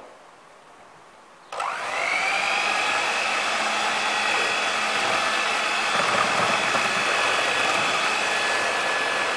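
Electric hand mixer switched on about one and a half seconds in. It spins up quickly to a steady whine and keeps running as its beaters work flour into a thin egg, milk and cream batter.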